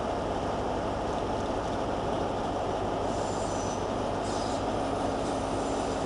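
Train running slowly over the curved pointwork of a station approach, a steady rumble of wheels on rail. From about halfway through, a thin high wheel squeal joins in.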